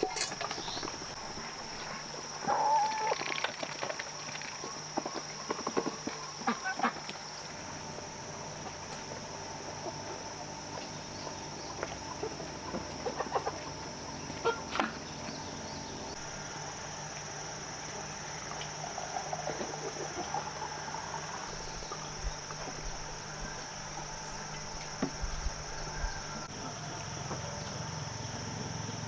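Chickens clucking now and then, scattered short calls over a steady high-pitched background hiss.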